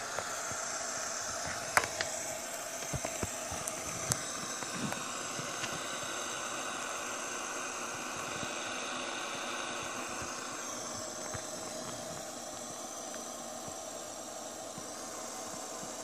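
Fidget spinner's ball bearing whirring as it spins: a steady, hissy whir with a few faint tones that slowly fades and sinks a little in pitch as the spinner slows. A few light clicks in the first four seconds.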